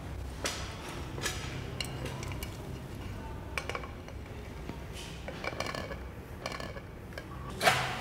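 Light clinks and knocks of hard objects being handled and set down, one after another at uneven intervals, some with a short ringing tone, and a sharper, louder knock near the end.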